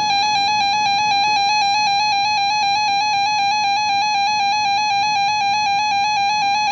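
Weather radio receiver's alert alarm: a loud, buzzy electronic tone warbling rapidly between two close pitches, signalling that a warning has been received.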